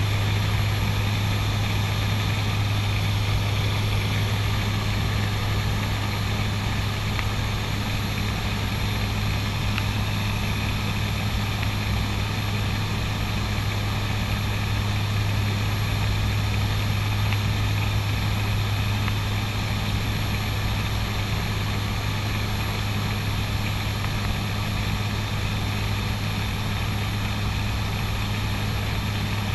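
Twin Garrett TPE331 turboprop engines and propellers of a CASA NC-212-200 Aviocar heard from inside the cockpit in steady level flight: an even drone with a strong low propeller hum and a faint high whine.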